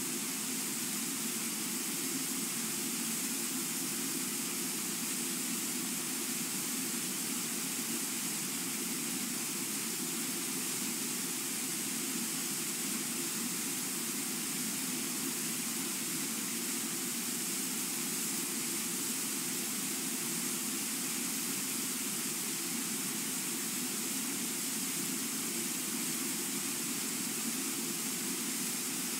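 Brooks Falls, a low, wide river waterfall, rushing steadily: an even, unbroken noise of pouring water.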